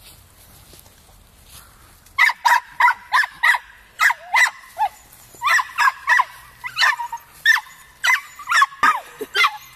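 Dog giving a rapid string of high-pitched play barks, about three a second, starting about two seconds in.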